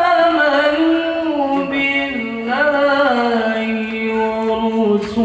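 Melodic Quran recitation (tilawah): one voice holds long ornamented melismatic notes whose pitch wavers and slowly steps downward.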